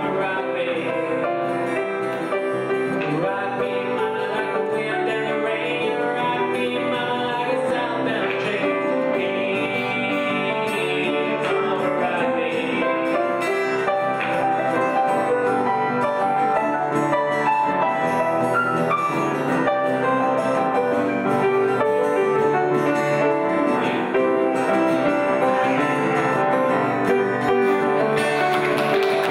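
Acoustic guitar music played live, with a man singing into a microphone.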